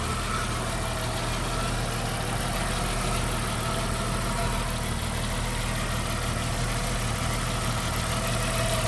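1991 Jeep Wrangler's 4.0 L high-output inline-six idling steadily, running again with a new crank position sensor fitted after a no-spark no-start.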